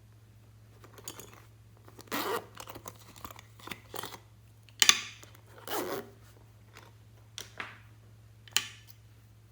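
Slime being worked and pressed by hand: irregular wet crackles and pops in short bursts, the loudest about halfway through, over a faint steady low hum.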